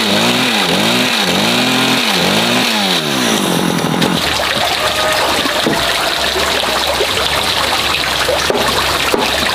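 Two-stroke chainsaw revving up and down in quick, regular surges while cutting a timber post, about one surge every 0.7 s. About four seconds in it stops, and a steady hiss with a low hum and faint clicks follows.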